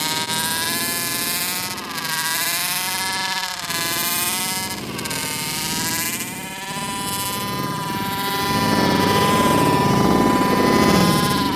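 Small two-stroke engine of a 1/5-scale gas RC baja buggy, revving up and down in quick surges, then held at steady high revs and louder for the last few seconds.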